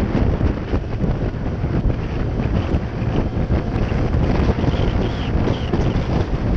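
Wind buffeting the microphone of a camera on a moving Honda PCX 125 scooter, a steady dense rumble of wind and road noise at riding speed.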